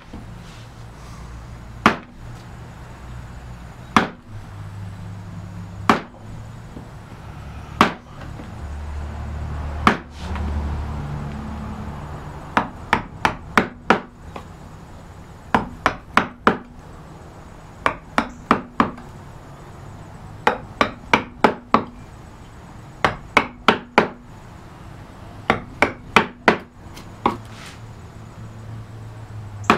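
Wooden mallet striking a carving gouge, chopping cuts into a carved wooden panel: single blows about every two seconds at first, then from about twelve seconds in, quick groups of three to five blows with short pauses between.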